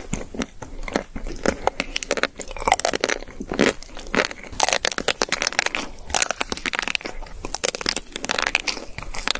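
Close-up eating sounds: crackling bites into the hard pink chocolate coating of an ice cream bar, with chewing in between, as a string of irregular sharp cracks.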